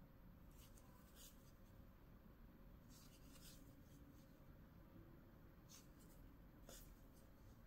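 Near silence, with faint scratchy rustles, about half a dozen short strokes, of yarn being pulled through crocheted fabric with a needle.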